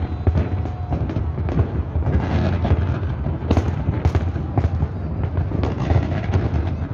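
Fireworks barrage: many shells bursting in quick succession, sharp bangs and crackling over a continuous low rumble, with the strongest bangs about three and a half and four seconds in.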